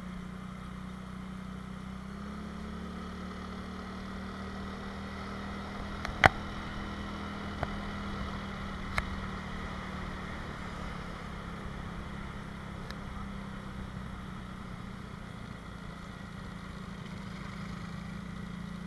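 Motorcycle engine running steadily while riding, with no big changes in speed. A few sharp knocks cut through it about six, seven and a half and nine seconds in; the first is by far the loudest.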